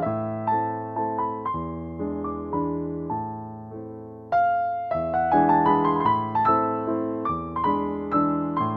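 Background piano music: a gentle run of struck notes that trails off and then starts a new, louder phrase a little past four seconds in.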